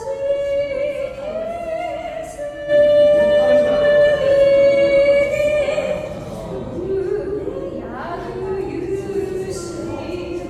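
Music: a high voice singing long held notes over lyre accompaniment, loudest through the middle.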